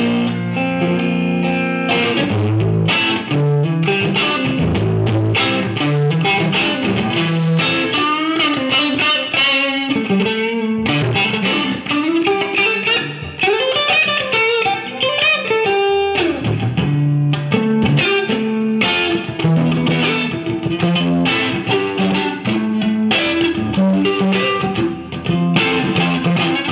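Electric guitar played through a Marshall JVM410 valve amplifier: a continuous passage of picked melodic lines and quick runs of notes.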